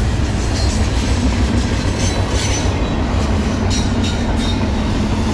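Freight train cars rolling past at speed: refrigerated boxcars and double-stack container well cars, with a steady rumble of steel wheels on rail. A few brief high wheel squeals rise over the rumble about halfway through and again near the end.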